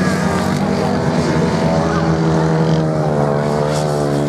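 Racing motorcycle engines running hard on a sand track, a steady engine note that rises a little past the middle.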